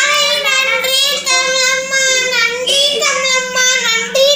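A child's high voice singing, holding long notes that waver slightly in pitch.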